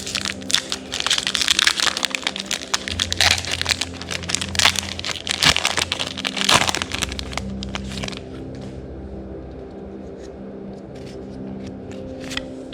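Foil booster pack wrapper crinkling and crackling as it is torn open and handled. It dies down about eight seconds in.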